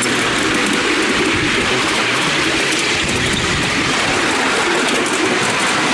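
Ride-on miniature railway train, hauled by a miniature BR Class 37 locomotive, running along the track with a steady rumbling and rattling running noise.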